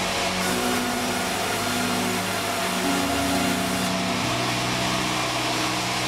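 Sawmill saw running steadily with a whine and a hiss while a wooden plank is worked on its bench.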